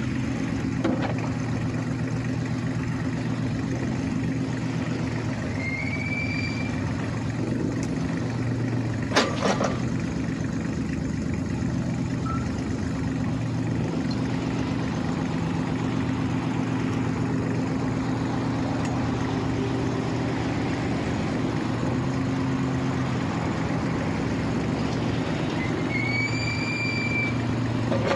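Kubota U-30-5 compact excavator's diesel engine idling steadily. A single sharp click comes about nine seconds in, and short high chirps sound twice.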